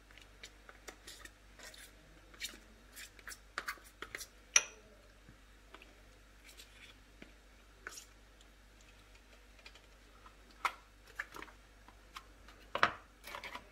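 Knife scraping soft cream cheese out of a plastic tub and tapping against a small ceramic bowl: scattered light scrapes and clicks, the sharpest about four and a half seconds in and another loud clatter near the end.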